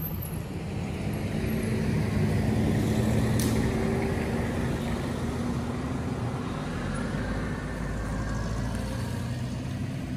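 A motor vehicle's engine passing on the road: a low engine hum grows louder over the first couple of seconds, then slowly fades.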